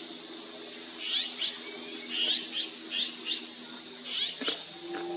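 A small songbird chirping: short, rising chirps in quick runs of two to four, over a steady high hiss.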